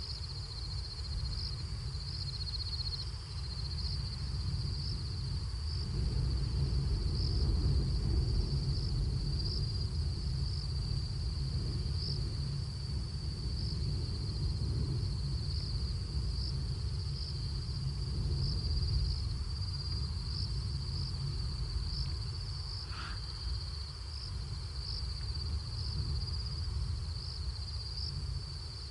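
Night insects trilling steadily in a high continuous chorus that pulses about once a second, over a constant low rumble. A single short sound cuts through once late on.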